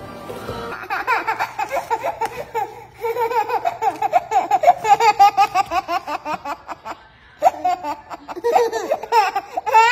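A baby laughing: a long run of quick, short laughs, about three or four a second, breaking off briefly about seven seconds in and then starting again, higher near the end.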